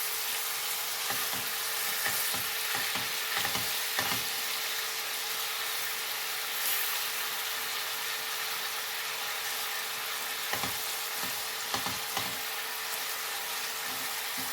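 Chicken strips with onion and garlic sizzling in oil in a frying pan, with scattered knocks and scrapes from stirring, most of them in the first few seconds and again near the end.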